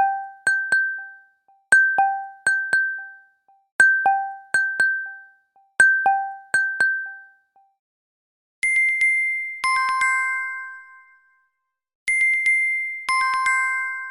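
Samsung Galaxy Watch4 alert tones, electronic chimes. A short two-pitch ding with quick, fading echo repeats sounds four times, about every two seconds. Then a different tone plays twice: a high note, joined about a second later by a lower two-note chord.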